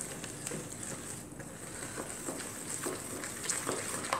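Wooden spoon stirring a wet, grainy batter of grated coconut, sugar and blended banana in a mixing bowl: soft wet scraping with faint irregular clicks of the spoon against the bowl.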